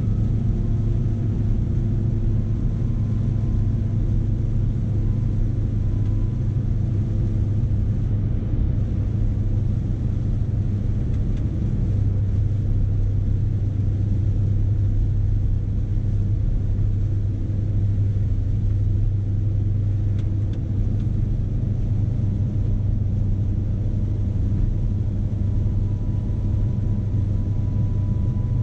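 Scania S520's 16-litre V8 diesel engine running with a steady low drone, heard from inside the truck's cab.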